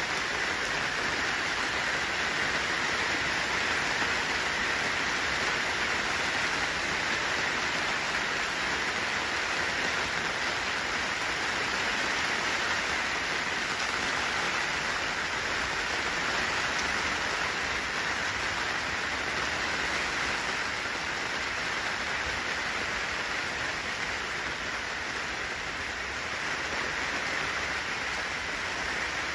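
Steady rain falling on wet pavement and puddles, an even hiss of many drops with no single louder event.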